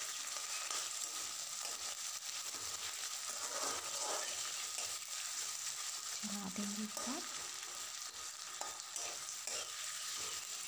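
Chopped potatoes and onions sizzling in hot mustard oil in a metal kadhai, while a metal ladle scrapes and knocks against the pan as they are stirred.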